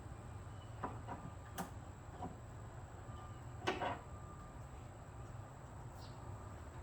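Scattered short plastic clicks and knocks from a van's liftgate trim panel as its push-in rivet clips are nudged with a pry tool and pressed into their holes; the loudest is a brief rattle near the middle. A steady low hum runs underneath.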